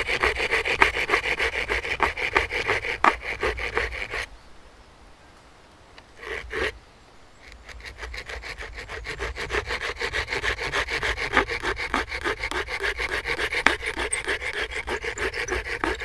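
Hand saw cutting a V-notch into a wooden bow drill hearth board in quick, even back-and-forth strokes. The sawing stops about four seconds in, with one short scrape during the pause, then starts again and keeps going.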